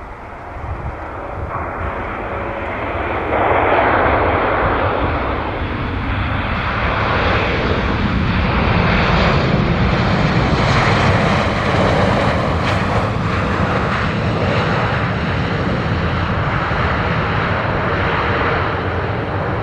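Embraer E195 jet just after touchdown, its two GE CF34-10E turbofans running on the landing roll. The engine noise swells about three and a half seconds in and then stays loud and steady as the jet rolls past.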